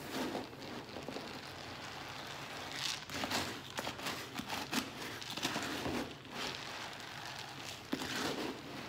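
Crinkling and rustling of a bag of dry cat food being handled, with dry kibble rattling into a plastic container in irregular bursts.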